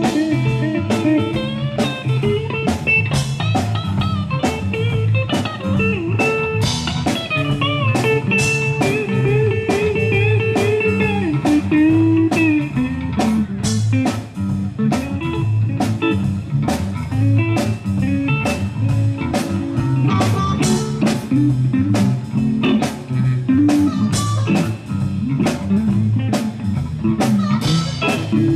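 Live blues band playing an instrumental passage: an electric guitar lead with notes that bend and slide in pitch, over bass and a steady drum-kit beat.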